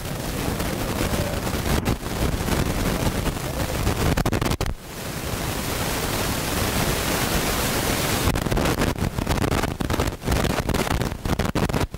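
Wind rushing on the camcorder microphone: a loud, steady hiss, broken by frequent crackles and short dropouts in the first few seconds and again in the last few.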